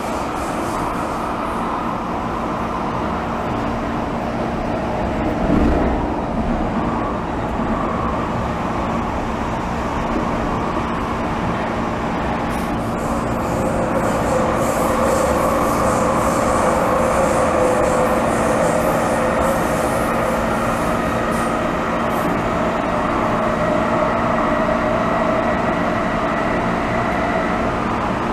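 MTR M-train electric multiple unit heard from inside the car while running: a steady rumble of wheels on rail with a steady hum, and a single thump about five and a half seconds in.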